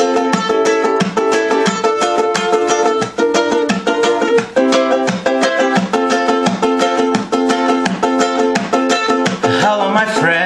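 A ukulele strummed in a steady rhythm, playing chords.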